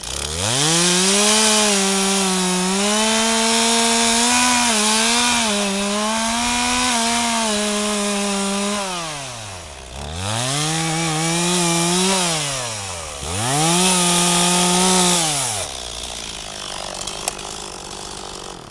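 Two-stroke chainsaw revved to full throttle three times, the first held for about nine seconds with small wavers in pitch, then two shorter runs, dropping back to idle between them.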